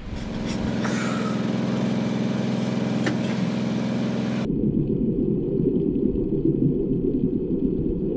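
A boat's engine running with a steady, even hum inside the wooden cabin. About four and a half seconds in it cuts off abruptly to a muffled, low rumbling wash of underwater noise.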